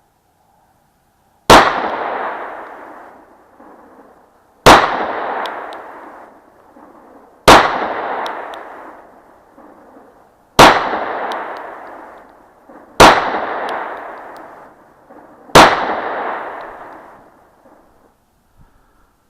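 Glock 43 9mm pistol firing six single shots, one every two and a half to three seconds. Each shot is a sharp crack followed by a long fading echo.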